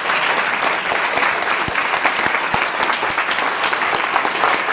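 Crowd of guests applauding steadily, a dense patter of many hands clapping.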